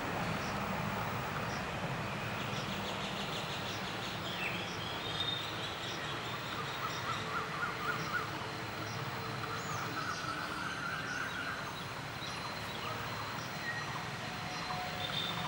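Male Asian koel calling, a run of repeated notes that climbs in pitch about six seconds in, with a shorter run later. Thin chirps of other birds and a steady traffic hum lie under it.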